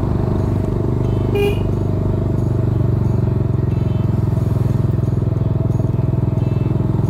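Vehicle engine running steadily with road noise while driving along. There is one short high beep about a second and a half in.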